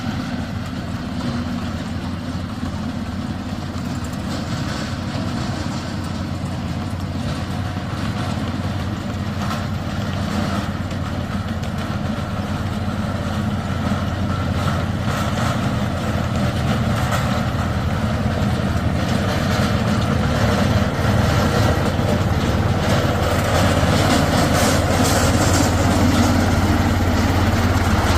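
Small engine of a tracked mini dumper running steadily, slowly growing louder as it draws near.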